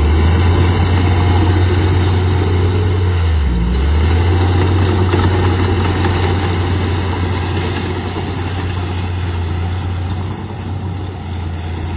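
Bulldozer's diesel engine running steadily under work, with its pitch dipping briefly twice, at the start and a little under four seconds in.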